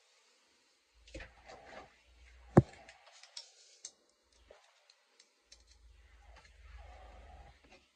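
Scattered soft clicks, knocks and rustles of handling close to the microphone, with one sharp click about two and a half seconds in.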